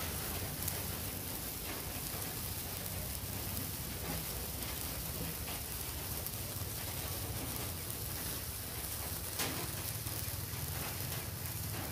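Sparklers burning, a steady fizzing, crackling hiss with a few sharper pops, the loudest about nine seconds in.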